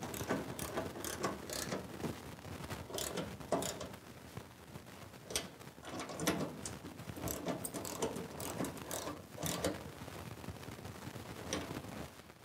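Ratchet wrench on an extension clicking in short, irregular runs as a snow blower's skid shoe bolt is tightened.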